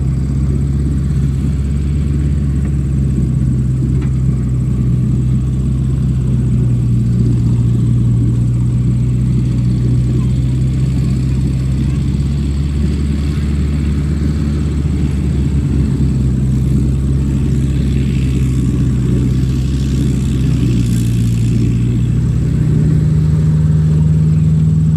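Diesel engine of a JCB 3DX backhoe loader running steadily while the backhoe digs mud. Near the end the engine note rises and stays higher.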